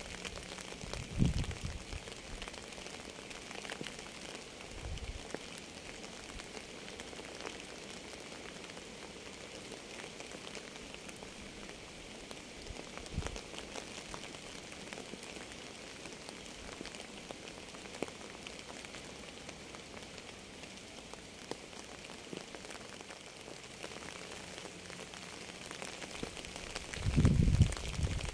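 Steady rain falling on a surface, an even hiss, broken by a few brief low thumps, the loudest pair near the end.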